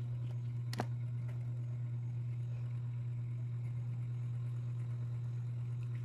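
A steady low hum, with one sharp click about a second in.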